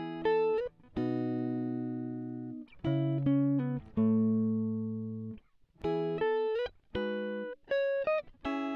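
Background music: a solo guitar plays a slow phrase of plucked chords and single notes. Each rings out and fades, with short gaps between and a few sliding notes.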